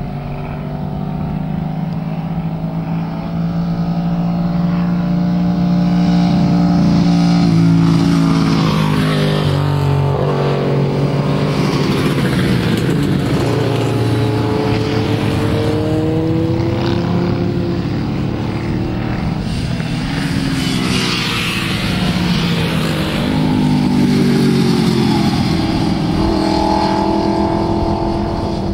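Several motorcycles lapping a race circuit, their engine notes overlapping and rising and falling in pitch as the riders shift, brake and accelerate through a corner and pass by.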